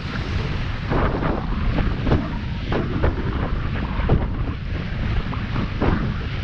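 Wind buffeting the microphone in a steady low rumble, over water rushing along a sailing yacht's hull under way. From about a second in come several sharper splashes of the bow wave against the hull.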